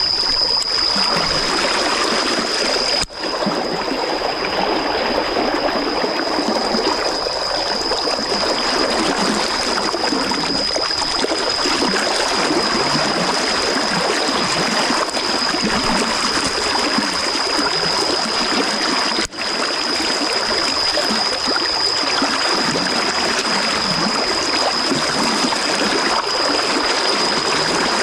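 Steady rush of a running stream, an even hiss of flowing water, with a thin steady high-pitched tone over it. The sound drops out for an instant twice, about three seconds in and again about nineteen seconds in.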